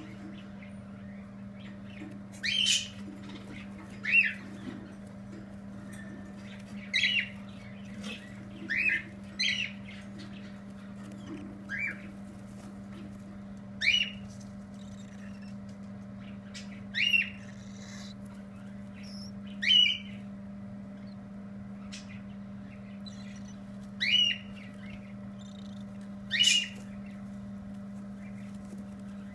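Pinfeathered baby birds giving short squawking calls, about a dozen spread irregularly every second or three. A steady low hum runs underneath.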